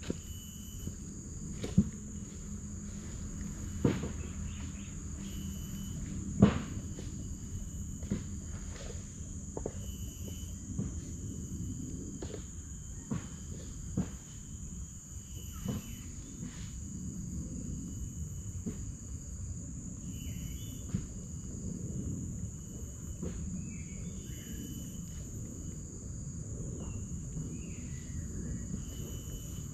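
Insects trilling steadily, with short chirps repeating over a low rumble. A few sharp knocks stand out, the loudest about six seconds in.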